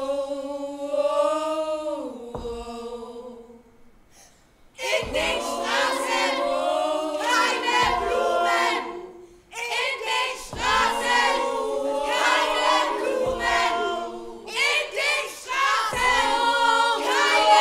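A choir of several voices singing held notes in harmony, with no clear instruments. It drops out briefly about four seconds in, then comes back fuller.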